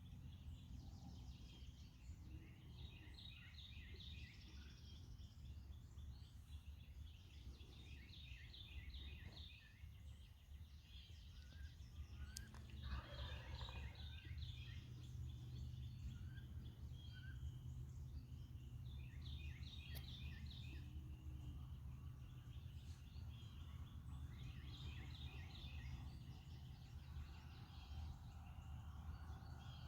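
Wild turkey gobbler gobbling, a short burst of rapid notes repeated about every five to six seconds, over a steady low rumble of background noise.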